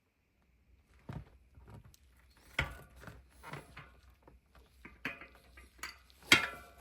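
Scattered light clicks and knocks of wrenches and a bicycle rear-hub axle being handled and worked. They start about a second in, with a sharper knock near the end.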